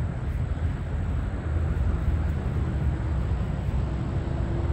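Steady low outdoor rumble of wind and road traffic, with a faint steady hum coming in near the end.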